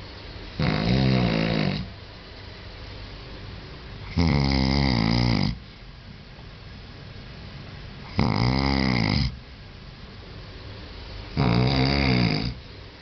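Loud snoring: four rasping snores, each about a second long, coming roughly every three and a half to four seconds, with a steady low hiss between them.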